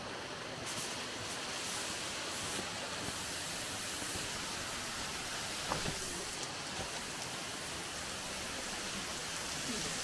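Steady rush of flowing water, a mountain stream or waterfall.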